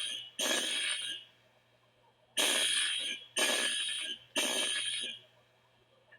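Building fire alarm horn sounding in the temporal-three evacuation pattern: harsh, high-pitched blasts in groups of three about a second apart, each group followed by a pause of about a second.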